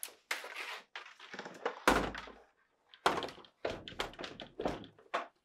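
GE French door refrigerator door being lifted and set onto its bottom hinge pin: a series of knocks and thunks from the door and hinge, the loudest a dull thud about two seconds in.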